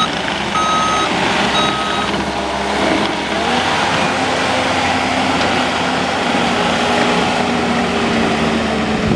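John Deere 317G compact track loader's diesel engine running steadily, its backup alarm beeping twice in the first two seconds and then falling silent while the engine runs on.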